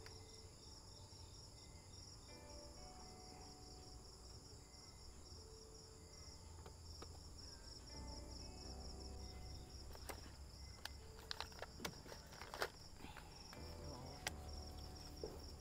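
Insects chirping in a steady, evenly pulsing high trill. Faint voices can be heard in the background, and there are a few light clicks and knocks about ten to thirteen seconds in.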